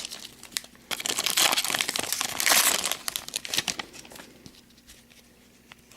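A trading-card pack's wrapper being torn open and crinkled, a dense crackling rustle for about three seconds, then dying down to faint handling noises.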